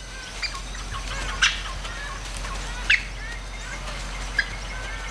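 Forest birds chirping, many short calls, with three sharper, louder calls about a second and a half apart over a steady low background hum.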